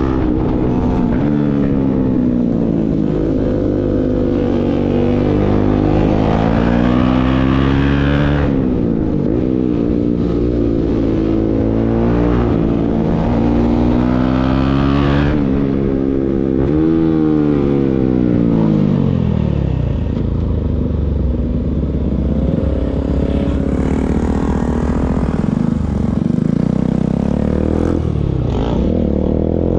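Bajaj Pulsar NS single-cylinder motorcycle engine through an aftermarket Akrapovic full-system exhaust, being ridden. It rises in pitch under acceleration and drops back several times, as through gear changes, then runs lower and steadier in the last third.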